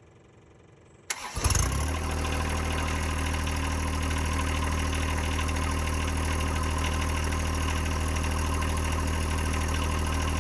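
John Deere 1025R compact tractor's three-cylinder diesel engine starting about a second in, catching after a brief crank and settling into a steady idle.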